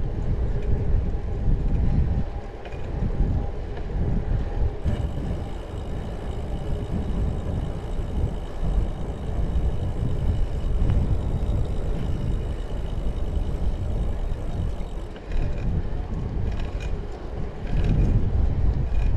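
Wind buffeting the microphone of a camera riding on a moving bicycle: a rumble that rises and falls. A faint high steady whine sits under it through the middle.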